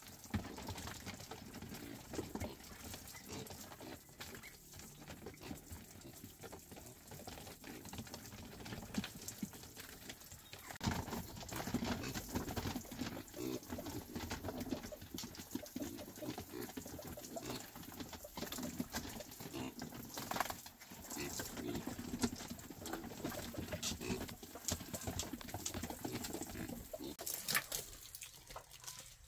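Piglets grunting and snuffling in a bamboo-floored pen, with water from a garden hose splashing onto the slats.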